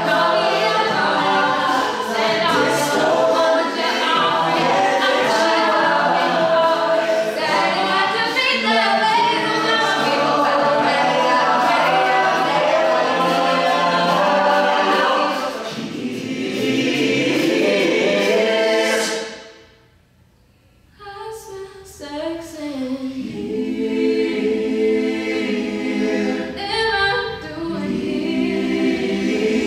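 A collegiate a cappella group singing in close harmony over vocal percussion. About twenty seconds in, the voices fall away to near silence for a second or two, then come back with held chords.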